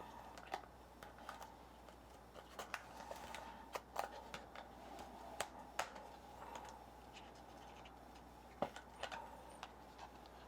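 Trading cards being handled: scattered soft clicks, taps and light scrapes of card stock, with a few sharper clicks spread through.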